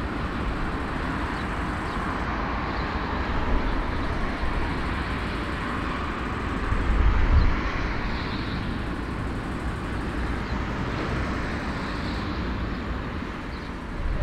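Steady rumble and hiss of a taxiing Airbus A340-300's four CFM56 jet engines at low thrust, swelling briefly about seven seconds in.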